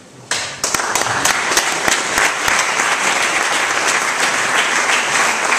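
Audience applauding: a few separate claps about a third of a second in quickly fill out into steady, continuous applause.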